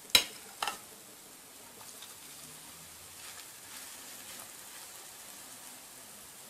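Hot oil sizzling faintly in a frying pan under potato fritters. Just after the start come two sharp clicks of a metal spoon. Soft scraping follows as the spoon spreads a spoonful of batter in the pan.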